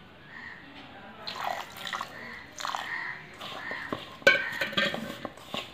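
A hand mixing a damp, crumbly mixture of roasted semolina, coconut powder and sugar in a steel bowl: irregular scraping and rustling with sharp knocks against the bowl, the loudest about four seconds in.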